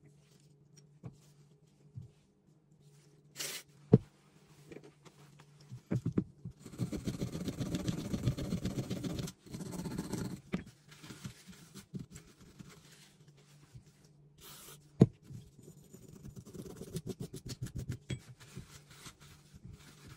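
Small metal Beretta gun parts being worked on a workbench: two sharp clicks of metal parts knocked or set down, a few seconds of rapid brush scrubbing on a part, and near the end quieter rubbing with a cloth rag.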